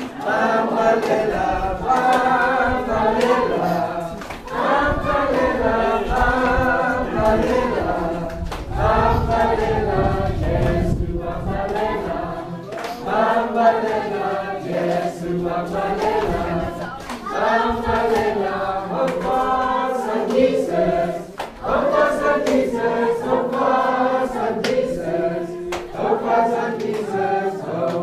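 A group of children singing a church hymn together, unaccompanied, in short repeated phrases. A low rumble on the microphone runs under the singing about eight to twelve seconds in.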